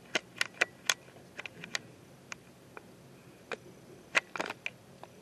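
Irregular sharp clicks, about fifteen, from operating a microfilm reader while the newspaper page scrolls. The loudest come in the first second and again about four seconds in.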